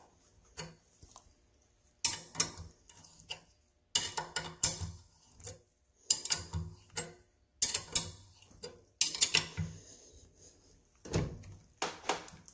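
Steel box-end wrench on a nut and bolt clamped in a vise, being tightened down in repeated swings: clusters of metal clicks and clanks every second or two as the wrench is seated, pulled and reset on the nut.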